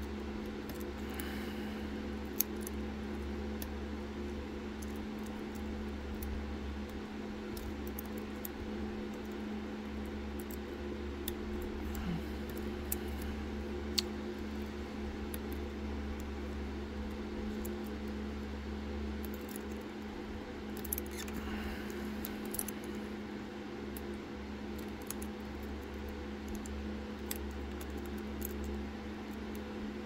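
Faint scratching and scattered metallic clicks of a rake pick working in an MNC Condor dimple cylinder lock, raking its pins and sliders, over a steady low hum.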